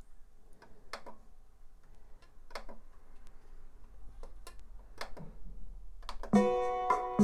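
Guitar music playing from a Sony CDF-760 boombox's CD player through its built-in speakers while the tracks are skipped: quiet at first with several sharp clicks, then much louder from about six seconds in.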